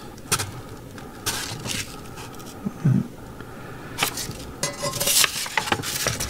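A cast iron skillet and its paper instruction insert being handled: scattered rustles and light knocks, coming in small clusters about a second in and again around four to five seconds in.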